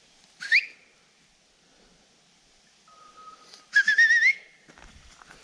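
Loud whistled recall calls to a bird dog. A short rising whistle comes about half a second in, then a longer warbling whistle that rises at its end about four seconds in.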